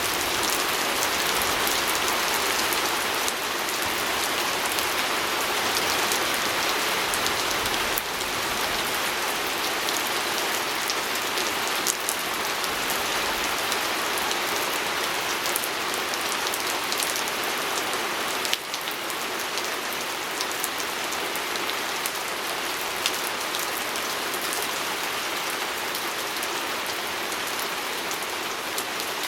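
Steady rain falling on a window pane, an even hiss with scattered sharp drop ticks against the glass.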